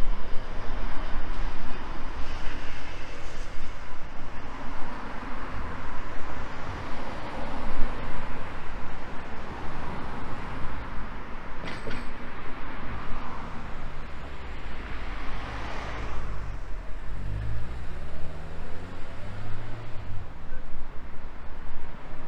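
Road traffic on a city street: cars passing steadily. In the second half one engine is heard rising in pitch as it accelerates.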